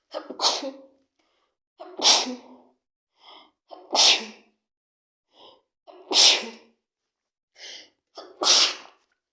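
A person with a cold sneezing five times in a row, about every two seconds, each sneeze led by a shorter, quieter intake of breath.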